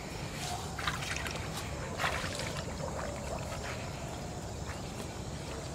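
Shallow muddy water sloshing and splashing as a person wades and works with their hands in it, with brief louder splashes about one second and two seconds in, over a steady low rumble.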